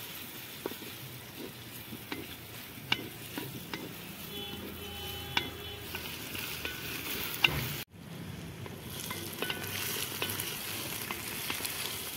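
Sliced onions sizzling as they fry in hot oil in a metal pot, stirred with a spatula that clicks and scrapes against the pot. The sizzle breaks off for a moment about two-thirds of the way through.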